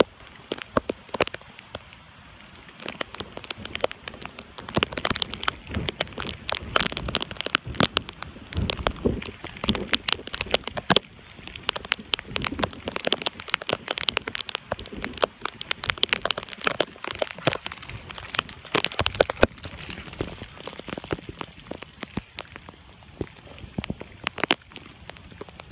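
Rain, heard as a hiss full of many sharp, irregular taps and crackles.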